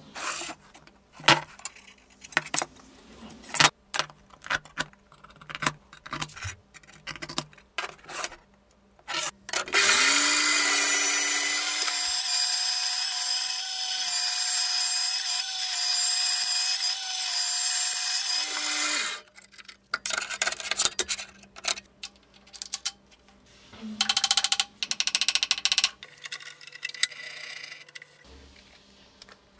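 Sharp knocks and clicks of metal parts being handled. Then a metal-cutting band saw runs steadily for about nine seconds, cutting steel flat bar, followed by short bursts of machine noise as a milling machine starts work near the end.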